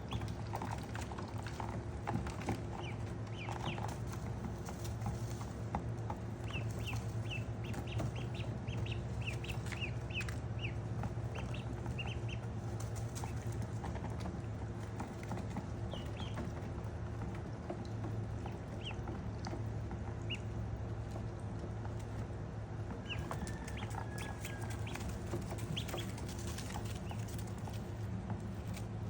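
Ducklings peeping: many short, high chirps, thickest in the first half, over a steady low hum.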